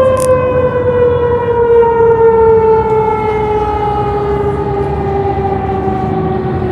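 Fire truck's Federal mechanical siren winding down: one long wail falling slowly and smoothly in pitch, over a low rumble.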